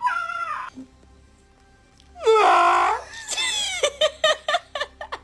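A person making a loud, drawn-out vocal wail about two seconds in, lasting under a second, followed by a run of short choppy vocal sounds, with music in the background.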